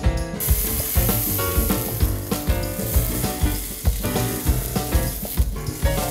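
Entrecote steak sizzling in hot oil in a frying pan, the hiss coming in about half a second in. Background music with a steady beat plays underneath.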